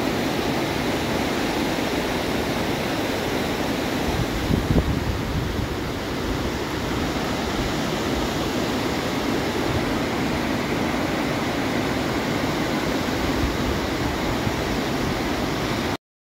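River rapids rushing over rock ledges, a steady loud noise of whitewater, with a brief louder low rumble about four and a half seconds in.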